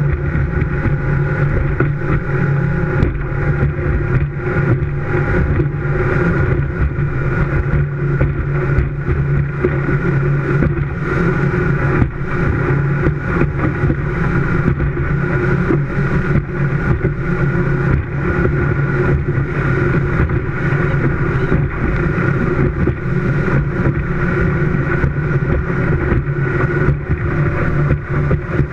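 Performance speedboat under way at high speed, its engine running steadily at an unchanging pitch over the rush of water and wind.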